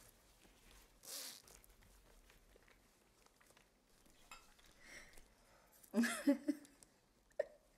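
Faint rustling and small clicks of a woven handbag being opened and rummaged through, with a brief voice sound about six seconds in.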